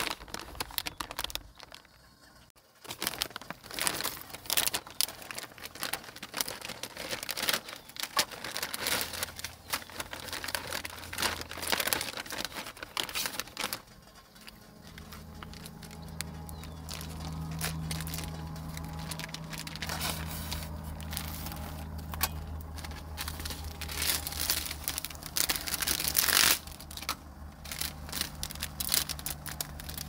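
Plastic food packaging crinkling and rustling in quick irregular crackles as it is handled and torn open. About halfway through, a low steady hum starts underneath.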